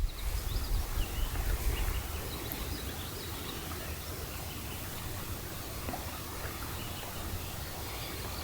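Outdoor wind ambience, a low rumble on the microphone that is stronger in the first couple of seconds, with faint scattered bird chirps throughout.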